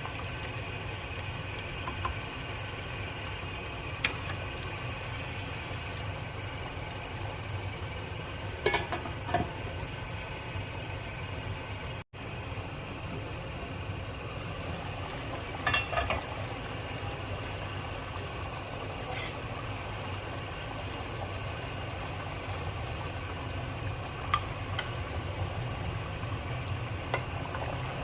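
Curry cooking in a pot on the stove: a steady low rumble and hiss, with a few short clinks.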